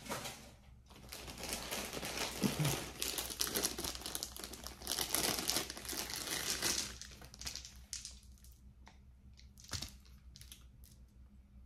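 Bags being crumpled and crinkled by hand: dense crinkling for several seconds, then thinning to a few scattered rustles and clicks near the end.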